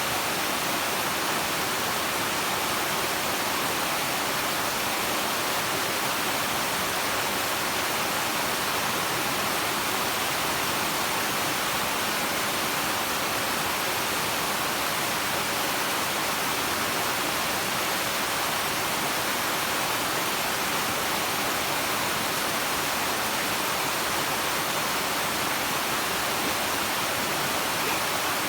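Waterfall: a steady, unbroken rush of falling water with no pauses or changes.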